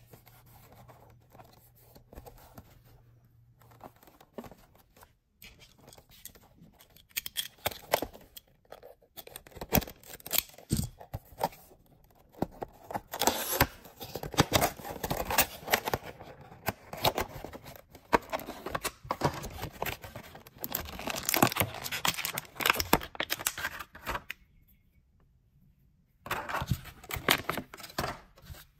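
Cardboard and clear plastic retail packaging being pulled and torn open by hand, crinkling and tearing. It comes in irregular crackles at first, is densest and loudest through the middle, pauses briefly, then gives one more short burst of handling near the end.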